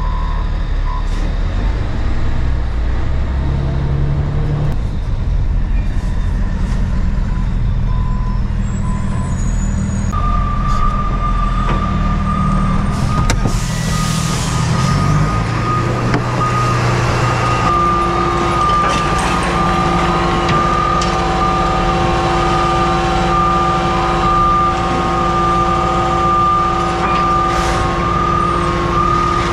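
Garbage truck's diesel engine running with changes in its pitch, its reversing beeper sounding briefly at the start. A burst of air hiss comes about fourteen seconds in, and a steady whine joins from about ten seconds on.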